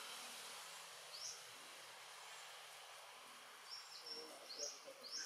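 Faint steady hiss of outdoor ambience with a few short, high, rising chirps: one about a second in, then a quick run of several near the end.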